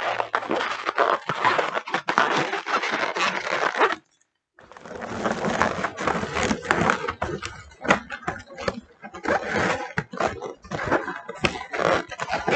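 Hands twisting small latex balloons and pressing them in among foil balloons: rubbery rubbing, squeaking and crinkling in quick, irregular scrapes, with a brief break about four seconds in.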